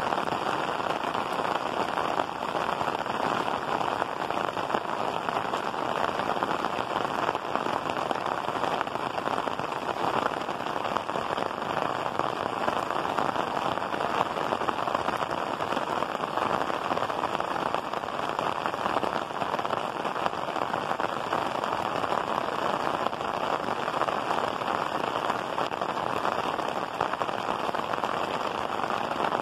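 Rain falling steadily on clay-tiled roofs: a dense, even hiss.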